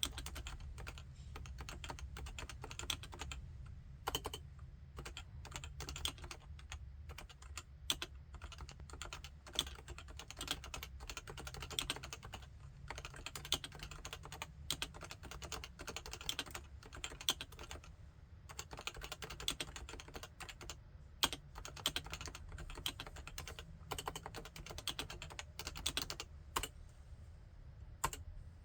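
Steady typing on a Topre Realforce 87UKD55 keyboard with electrostatic capacitive (Topre) switches: a fast, uneven stream of keystrokes with a few louder single strokes mixed in.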